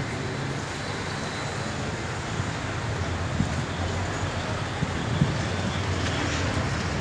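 Town street traffic: car engines running and passing on a busy road, a steady rumble that grows a little louder toward the end, with a few light knocks.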